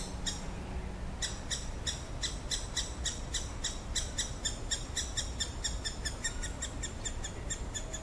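Great spotted woodpecker nestling calling from inside the nest hole: a fast, even run of short, high, sharp calls, about six to seven a second.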